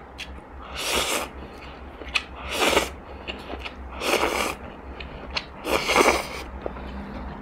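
Instant noodles slurped off chopsticks four times, each a loud sucking hiss of about half a second, with small wet chewing clicks in between, close-miked.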